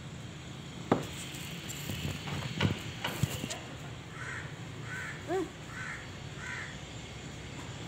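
Crow cawing four times, about three-quarters of a second apart, with one lower, arching call in the middle of the run. Before that come a few sharp knocks, the loudest sounds here.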